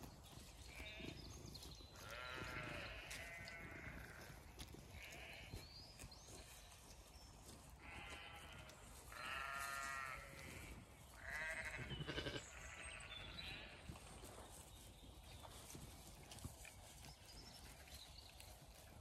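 Zwartbles sheep bleating again and again, with several long, wavering bleats between about two and thirteen seconds in.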